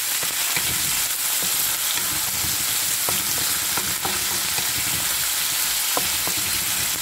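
Sliced ginger, onions, garlic, red peppers and tomatoes sizzling in hot oil in a wok, stirred with a wooden spatula that scrapes and taps against the pan now and then.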